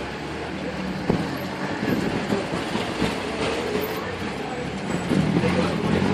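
Busy city street traffic: vehicle engines running and passing, with people talking in the background and a sharp knock about a second in.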